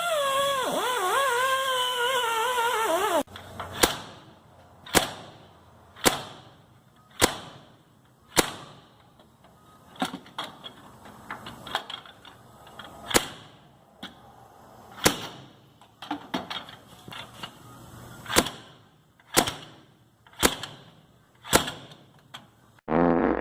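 An angle grinder whining on steel, its pitch dipping under load, cut off abruptly about three seconds in. Then a series of sharp hammer blows on the metal mount, roughly one a second, each ringing briefly. A short burst of grinding comes back at the very end.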